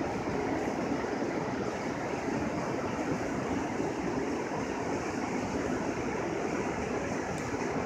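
Steady, even rushing background noise outdoors with no distinct events, the kind of roar that city traffic makes.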